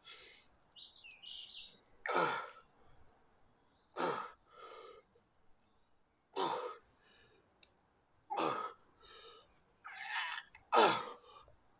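A man's sharp, forceful exhales, one with each dumbbell curl about every two seconds, with softer breaths between, as he strains through the last reps of a set. A bird chirps briefly about a second in.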